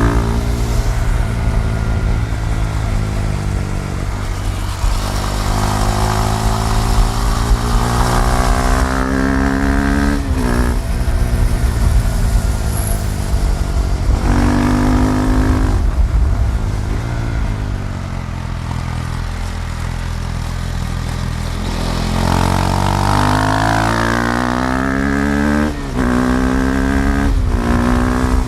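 KTM Duke 390's single-cylinder engine riding under load, revs climbing and then dropping sharply at each quick upshift, several in a row near the end. A quieter stretch of lower, steadier revs comes about two-thirds of the way through.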